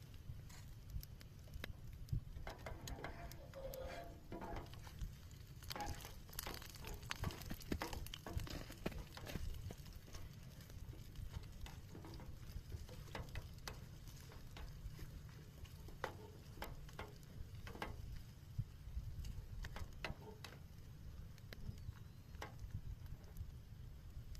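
Scattered light clicks, taps and handling noises of cooking work, busiest a few seconds in, over a steady low rumble.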